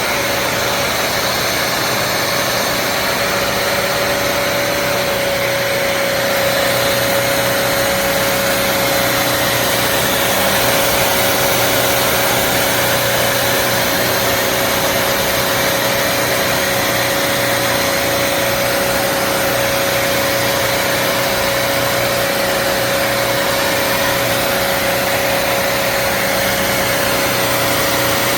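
Bissell CrossWave HydroSteam wet-dry vacuum running steadily: a constant motor whine over a rushing air hiss, stepping up slightly in loudness about six seconds in.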